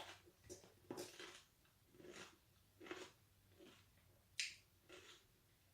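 Quiet crunching and chewing on a large sour pickle: short crisp crunches about every half second to a second.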